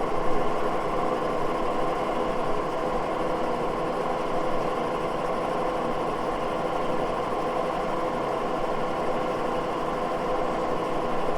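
Moore jig borer running steadily while boring dowel pin holes, a continuous machine hum with several steady tones.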